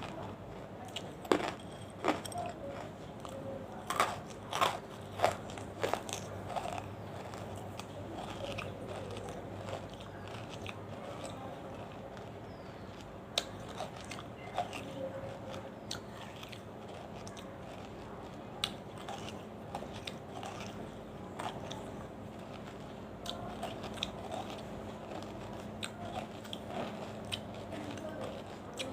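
Banslochan (tabasheer, the chalky bamboo silica) being bitten and chewed close to the microphone. Several sharp, loud crunching bites come in the first few seconds, followed by quieter, steady crunchy chewing.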